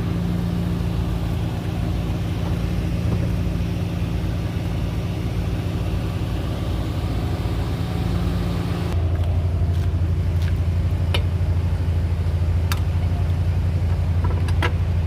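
Vehicle engine idling steadily. About nine seconds in, the sound changes abruptly to a deeper, stronger hum, with a few sharp clicks after that.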